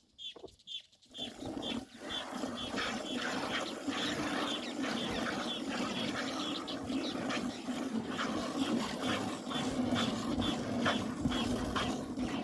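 Cow being milked by hand: jets of milk squirting into a pail in quick succession, starting about a second in. A bird repeats a short, high chirp about twice a second throughout.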